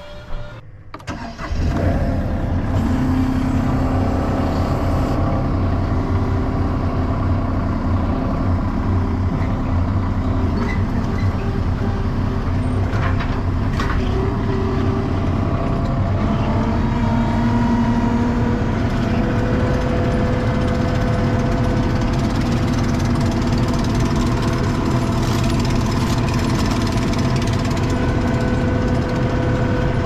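Skid steer loader's diesel engine running steadily, heard from inside the cab, with a slight shift in its pitch about halfway through.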